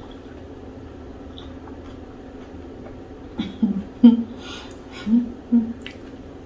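A woman's short, low throat sounds and gulps, four or five brief ones in the second half, as she strains to swallow a large lump of fufu whole without chewing.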